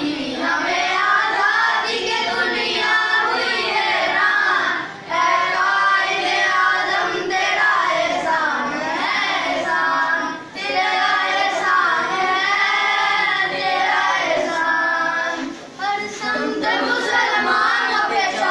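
A group of schoolboys singing together in unison, in long held phrases broken by three short pauses.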